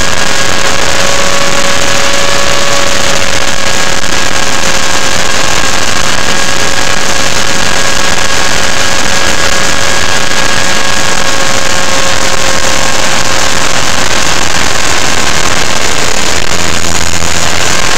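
T-Rex 500 electric RC helicopter heard from a camera mounted on it in flight: a loud, steady motor-and-gear whine over the rush of rotor wash, overloading the small microphone. The whine's pitch sags slightly toward the end.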